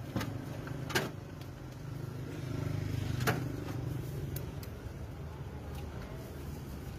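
Street traffic: a motor vehicle's engine running as a steady low hum that swells about halfway through and then fades, with a few sharp clicks over it.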